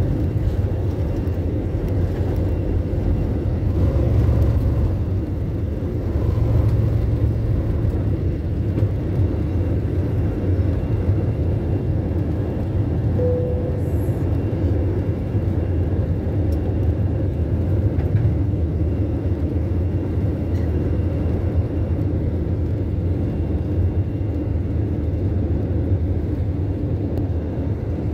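Cabin noise of an Airbus A320-family airliner at takeoff thrust: a steady, deep engine rumble with rushing air, heard from a seat over the wing as the jet leaves the runway and climbs out.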